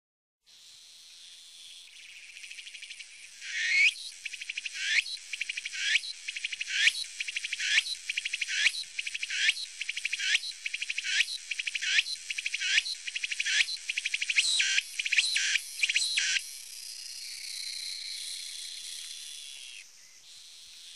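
A cicada singing: a high buzz swells over the first few seconds, then runs into a regular series of phrases, about one a second, each ending louder, and near the end breaks into a wavering buzz that falls away.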